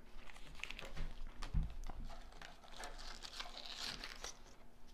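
Crinkly packaging rustling and crackling as items are handled and taken out of a subscription box, with scattered clicks and a soft thump about one and a half seconds in.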